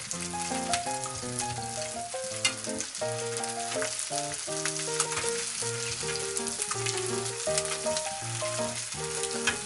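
Chicken thighs frying skin-side down in olive oil in a frying pan, a steady sizzle with frequent small crackling pops of spattering fat. Background music plays a melody of held notes over it.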